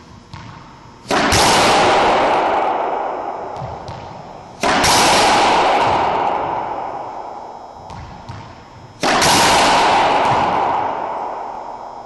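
Three loud, sudden impacts about three and a half seconds apart, each ringing out slowly over a few seconds.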